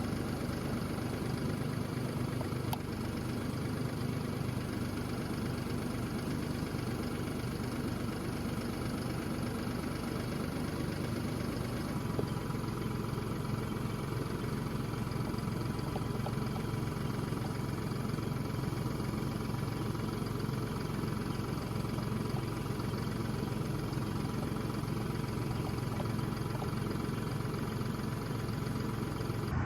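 Tractor engine running at a steady, even drone.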